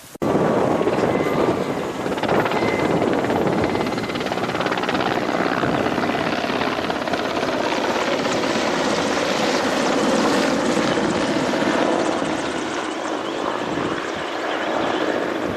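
Helicopter flying close by: a loud, steady rotor and engine noise that cuts in suddenly right at the start and holds level throughout.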